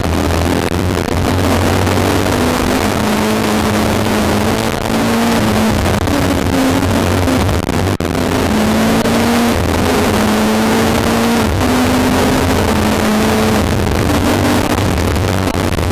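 Rally car engine heard from inside the cockpit at full stage pace, its pitch climbing and dropping back again and again as the car accelerates and changes gear, under a dense rush of road and wind noise. The recording is of poor quality.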